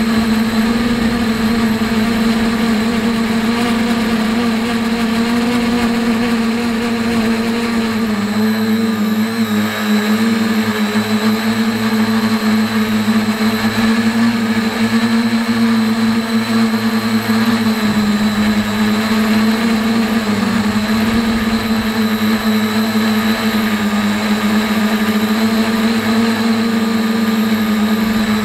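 A quadcopter's brushless electric motors and propellers buzzing steadily in flight, heard close up from the camera mounted on the craft. The pitch wavers slightly and dips briefly a few times as the throttle changes.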